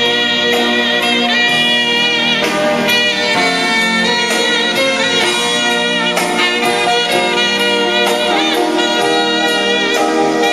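Music played back from a cassette on a Pioneer CT-F500 stereo cassette deck, heard through the hi-fi's loudspeakers, steady in level throughout.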